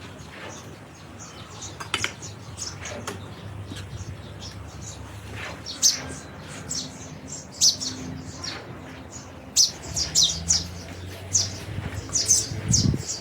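Small birds chirping: short, sharp, high chirps, sparse at first and coming thicker in the second half.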